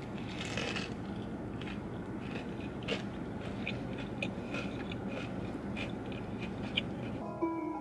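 Irregular small clicks and crunches, two or three a second, over a steady background hum. Guitar music comes in just before the end.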